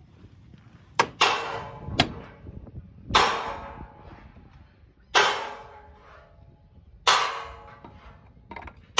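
Hammer blows on the steel chassis rail of a truck under repair. There are four heavy strikes about two seconds apart, each ringing out for a second or more, with a few sharper, lighter knocks between them.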